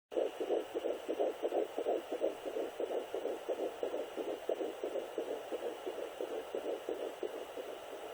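Sonoline B handheld fetal Doppler picking up a 10-week fetus's heartbeat: a rapid, even pulsing beat from the device's speaker, growing a little weaker near the end.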